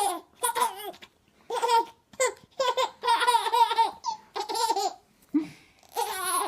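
A baby laughing in a run of short, high-pitched bursts of giggles with brief pauses between them, the longest laugh about three seconds in.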